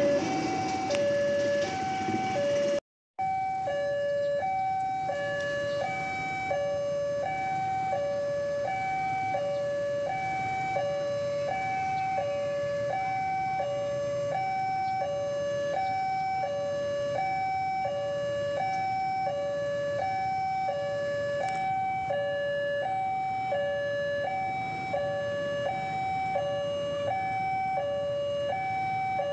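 Railway level-crossing warning alarm sounding a steady two-tone high-low signal that repeats evenly. A passing train rumbles under it for the first few seconds, then the sound drops out briefly about three seconds in and the alarm carries on alone.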